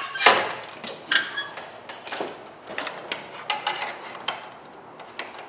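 Seat of a Scag Tiger Cub zero-turn mower tipped up with a knock, followed by irregular clicks and taps as hands work around the battery compartment.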